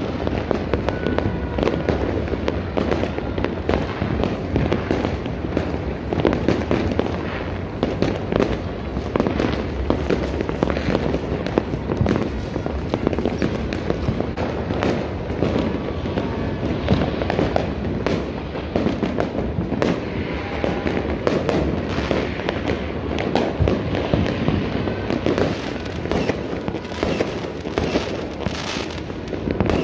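Dense, continuous barrage of aerial fireworks and firecrackers: many overlapping bangs and crackling going off without a pause.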